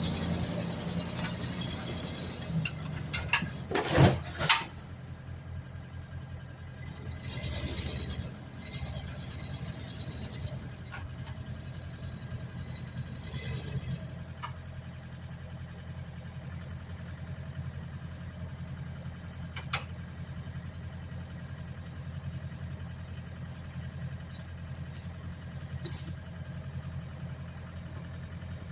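Engine of a homemade Doodlebug skidder built from a 1990 Dodge W250 running steadily at low speed, with a few loud knocks about four seconds in and occasional clicks.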